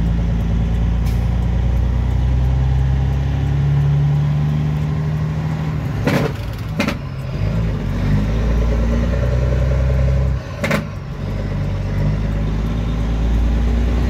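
Heavy truck's engine running steadily, heard inside the cab as the truck drives, its low note shifting a little in pitch. A few sharp knocks come about six and ten and a half seconds in, the engine rumble dipping briefly at the second.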